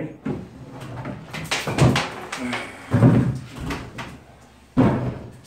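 Wooden kitchen cabinet being lowered by hand from an overhead ledge: a run of wooden knocks, scrapes and thumps, the loudest thump about three seconds in.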